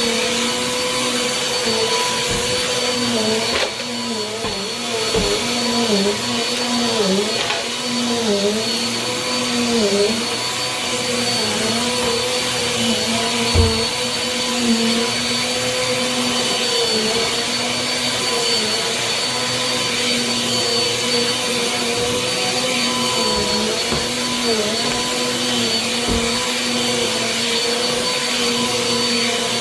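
Compact Bissell upright vacuum cleaner running steadily, its motor pitch dipping briefly again and again as it is worked. A single thump about fourteen seconds in.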